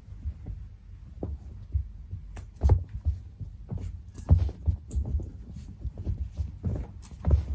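Irregular dull thumps with short scratchy rustles: a cat shifting about and bumping against the walls of a cardboard box from inside.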